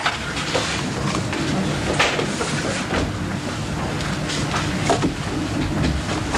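Rustling and knocking handling noise close to the microphone over a low rumble, with irregular small bumps and no steady rhythm.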